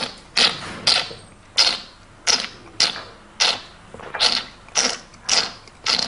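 Tea taster slurping tea through pursed lips: a quick run of short, sharp, hissing slurps, roughly two a second.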